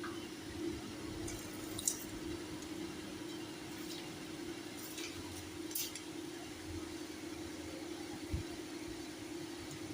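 A steady mechanical hum that holds one pitch, with a few light clicks and a single low knock near the end.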